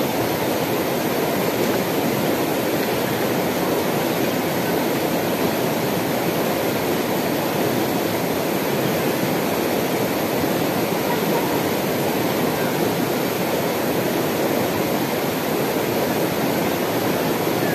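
Shallow rocky mountain river rushing steadily over stones.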